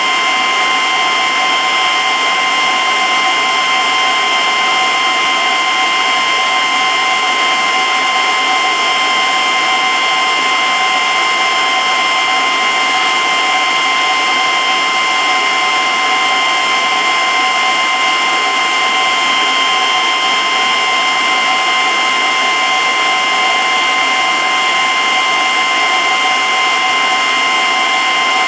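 Aquarium pump running steadily: an even, whirring hiss with a few fixed, high whining tones that never change.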